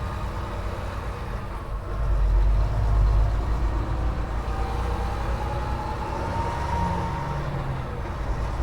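Semi truck running, with a steady low rumble of engine and road noise. A faint rising whine comes in about halfway through.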